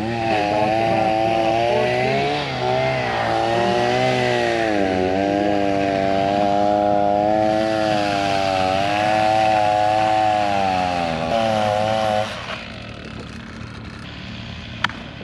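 Gas chainsaw running hard under load in a cut, its pitch wavering up and down; it drops off suddenly about twelve seconds in.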